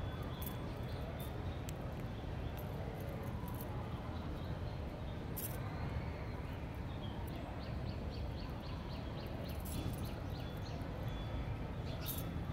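Outdoor ambience: a steady low rumble of wind on the microphone, with scattered light clicks. About halfway through comes a rapid series of high chirps, about six a second, lasting a couple of seconds.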